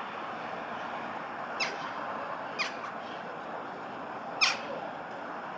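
A bird gives three short calls, each sliding steeply down in pitch, about one, then two seconds apart, over steady street noise.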